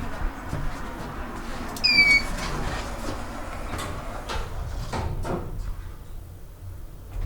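Modernized OTIS hydraulic elevator in operation: a low steady hum, a short high squeak about two seconds in, then several clicks and knocks from the car and door mechanism.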